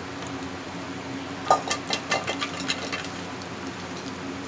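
Chicken rolls frying in hot oil in a pan, a steady sizzle, with a quick run of sharp clicks and taps against the pan from about a second and a half in.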